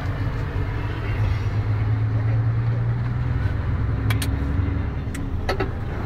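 Mercedes-Benz Actros truck's engine and tyre noise heard from inside the cab, a steady low drone that grows a little louder about a second and a half in. A few sharp clicks come near the end.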